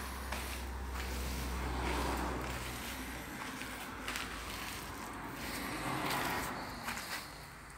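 Footsteps on artificial turf and handheld camera handling noise as someone walks around a parked scooter. A low steady hum underneath stops about three seconds in.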